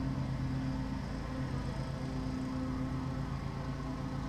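Many honeybees buzzing over an open hive in a steady, even hum.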